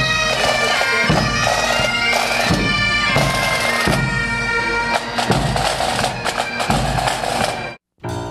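Marching pipe band playing: bagpipes with a steady drone and melody over bass drum beats, cut off abruptly near the end.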